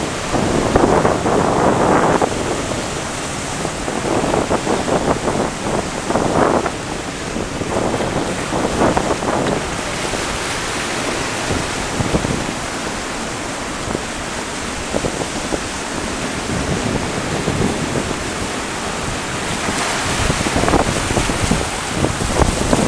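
Breaking surf washing over and around shoreline rocks in repeated surges, the loudest in the first two seconds, with wind buffeting the microphone.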